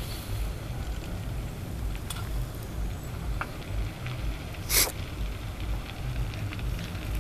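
Large wooden temple structure burning: a steady low rumble of the blaze with scattered crackles, and one loud sharp crack from the fire nearly five seconds in.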